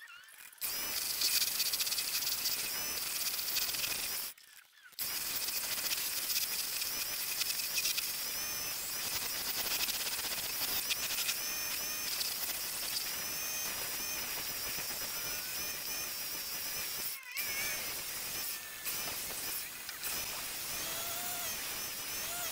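Aldi wood-turning lathe spinning a timber blank while a hand chisel cuts it: a steady hissing scrape of the tool in the wood, with a faint wavering whine on top. It breaks off briefly a few times.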